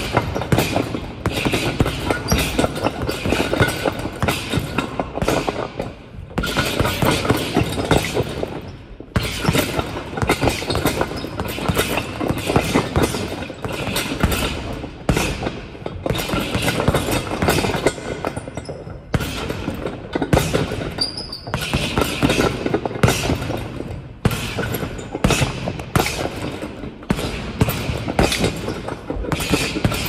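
Everlast Powerlock 2 leather boxing gloves punching a leather heavy bag in rapid flurries of thuds, with short pauses every few seconds, echoing in a large gym hall.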